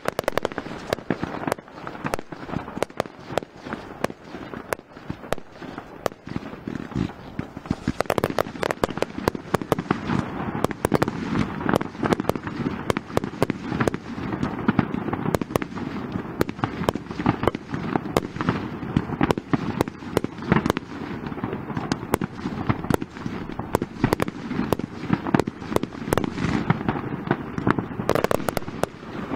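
Fireworks display: aerial shells bursting in a dense, continuous run of pops and bangs, growing louder and busier about eight seconds in.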